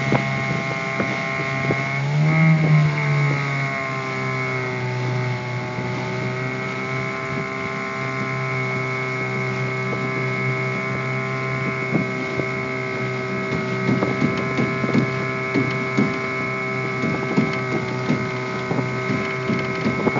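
Small boat's engine running steadily at low speed with a constant hum. About two seconds in its pitch briefly rises and falls, then settles slightly lower.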